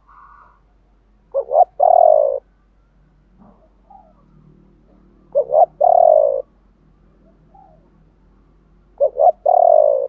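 Spotted dove cooing: three calls about four seconds apart, each two short notes followed by a longer coo that slides down in pitch.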